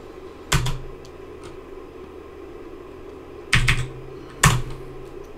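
Computer keyboard keys clicking as a terminal command is typed: one keystroke about half a second in, then a short run of keystrokes around three and a half to four and a half seconds in. A faint steady hum lies underneath.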